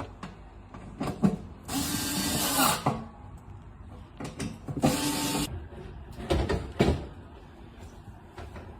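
A small electric motor whirring in two short bursts, the first about a second long and the second shorter, with knocks and clatter of tools between.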